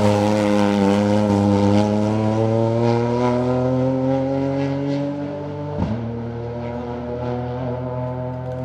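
Ford Fiesta R2T rally car's turbocharged 1.0-litre three-cylinder engine under hard acceleration, its note climbing steadily for about six seconds. The note breaks sharply about six seconds in, then carries on.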